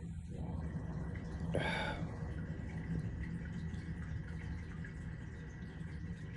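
One short, breathy mouth or throat sound about one and a half seconds in, over a steady low hum with faint scattered ticks.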